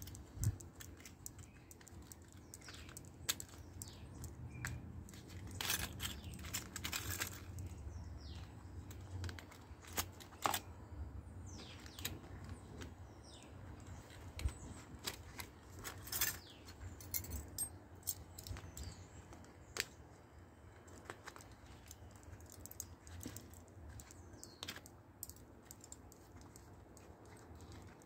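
Handling noise from a zippered case of small metal tools: a scatter of small clicks, taps and light rattles, busiest in the first several seconds and thinning out later.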